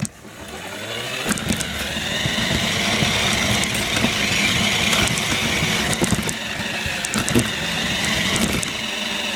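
Toy remote control car's small electric motor whirring as the car drives, building up in the first second, with scattered clicks and knocks from the car running over the floor.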